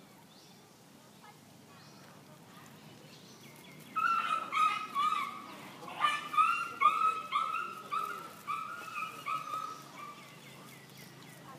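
A dog yapping in a rapid series of short, high yelps, starting about four seconds in and tailing off near the end.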